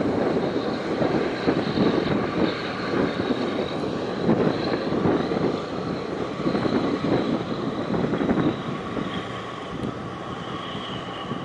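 A steady low engine drone mixed with wind buffeting the microphone, with a faint high whine coming in near the end.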